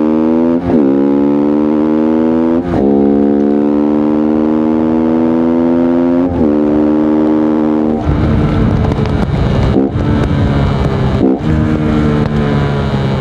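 Voge 125R's single-cylinder 125 cc engine accelerating hard, its pitch rising and then dropping at each of three quick upshifts in the first six seconds. About eight seconds in the sound turns rougher and noisier.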